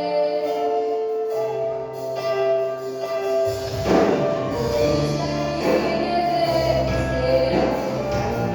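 Live gospel band playing a hymn. Held keyboard-like chords carry the first half; about halfway through, drums and bass come in with a steady beat under them.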